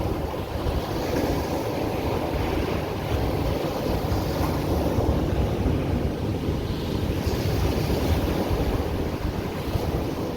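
Ocean surf washing onto the beach in a steady rush, with wind buffeting the microphone in a low, gusty rumble.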